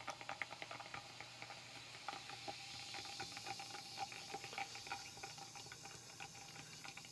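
Candy soda powder fizzing in a glass of water as it is stirred with a straw: a faint crackling fizz of popping bubbles with many small irregular clicks, the hiss swelling a little midway.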